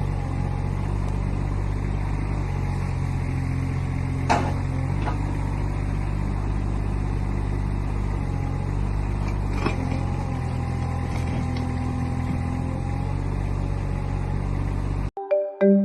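Heavy construction machine's diesel engine running steadily, with two sharp clanks about four and ten seconds in. It cuts off near the end, where a marimba-like tune begins.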